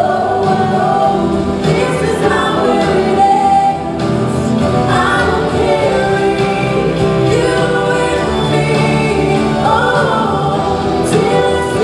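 A woman singing a slow ballad into a handheld microphone, with long held notes over a sustained instrumental accompaniment.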